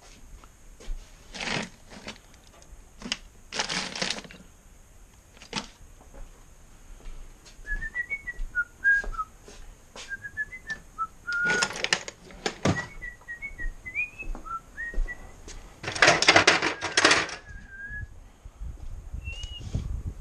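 A person whistling an aimless tune in short, wavering notes, broken by several loud bursts of rattling and rummaging noise.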